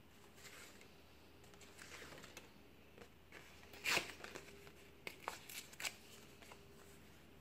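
Scraps of scrapbook paper rustling as hands pick through and handle them, with one sharp crackle about halfway through and a few quick crisp crinkles just after.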